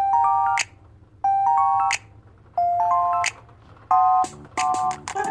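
Outro background music: a short, rising chime-like electronic phrase repeated about every 1.3 seconds, each ending in a sharp percussive hit, with a lower accompaniment coming in near the end.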